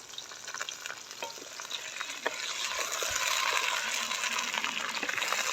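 Onions and tomatoes frying in hot oil in a cooking pot: a steady sizzle with scattered clicks of a stirring utensil, the sizzle growing clearly louder about two seconds in.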